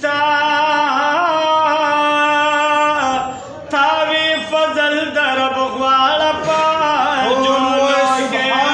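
Men singing a naat, an Islamic devotional hymn, unaccompanied into a microphone. The notes are long and held, with ornamental turns. There is a brief break for breath about three seconds in.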